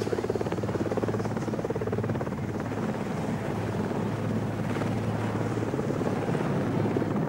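Helicopter running overhead: a steady low hum under a fast, even rotor chop.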